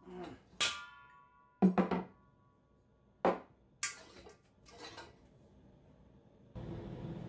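Metal parts clanking and knocking at irregular intervals, some strikes leaving a short metallic ring. Near the end a steady low hum starts.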